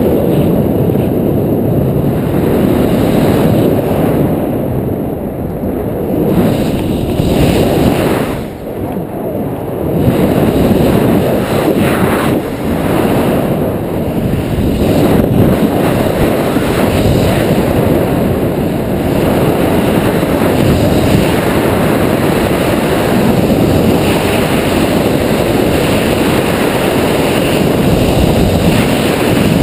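Loud rush of wind buffeting the camera microphone of a tandem paraglider in steep banked turns. It eases briefly about eight seconds in.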